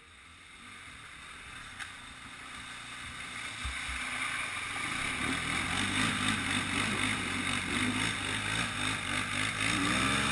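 ATV engine running under throttle while churning through a wet mud hole, growing steadily louder from a couple of seconds in and then holding loud and steady.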